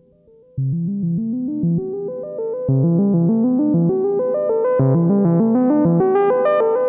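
Behringer Odyssey analog synthesizer playing a quick, rising arpeggio pattern over and over, its tone growing steadily brighter as the filter opens. It gets louder about half a second in and again near three seconds.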